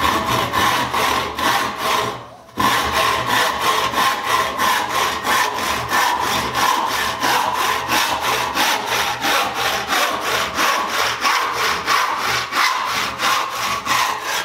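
Pre-1914 Disston D-18 flooring saw, freshly filed cross-cut, cross-cutting a board by hand with quick, even push-and-pull strokes. There is a short pause about two seconds in.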